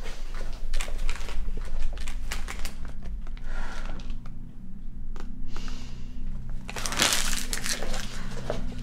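Paper crinkling and rustling in irregular crackles as a torn, crumpled note is handled, with a louder crumpling rush about seven seconds in, over a low steady hum.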